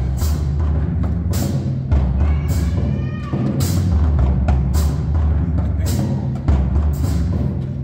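High school marching drumline playing: snare drums, tenor drums, bass drums and crash cymbals together. A steady low drumming runs underneath repeated cymbal crashes that come about once a second.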